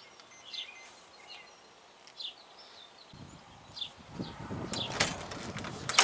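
Small birds chirping in short, high calls. From about halfway, a rustling handling noise with a few sharp clicks, as of a paper booklet being handled.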